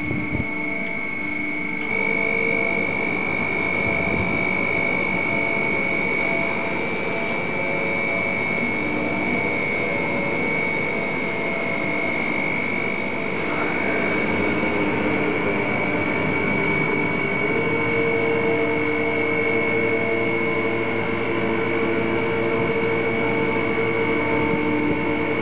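Container gantry crane's electric hoist drives running while lifting a load: a steady high-pitched whine with lower hums under it that change pitch a couple of times.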